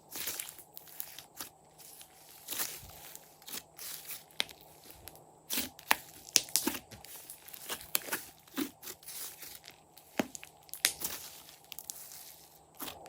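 Hands squishing and stretching glossy slime, making irregular sticky pops and crackles.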